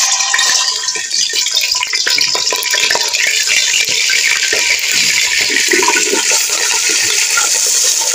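Raw chicken pieces frying in hot ghee in an aluminium pot: a loud, steady sizzle with many small crackles and spatters.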